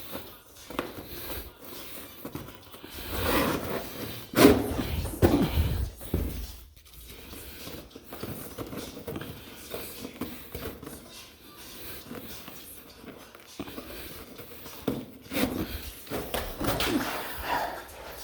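Irregular scuffing, rustling and thumping of carpet and pad being handled and dragged, with two louder spells of handling about three to six seconds in and again near the end.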